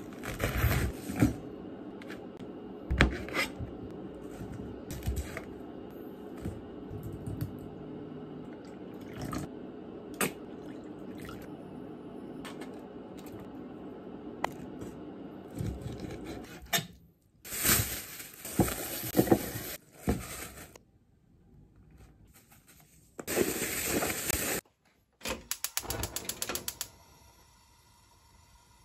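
Kitchen preparation sounds: a knife cutting into a cabbage head on a cutting board with sharp knocks, then scattered clinks, taps and scrapes of a spoon and a stainless steel bowl. The sounds change suddenly several times, with short quieter gaps and a quick run of clicks near the end.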